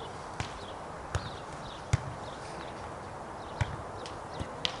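A ball bouncing on a hard indoor court floor: about five sharp thumps at irregular intervals, with faint short high squeaks between them over steady hall noise.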